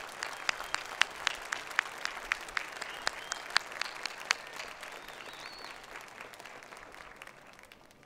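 Crowd applauding, with one close pair of hands clapping at a steady pace of about four claps a second above the rest. The close clapping stops a little past halfway, and the applause dies away over the last few seconds.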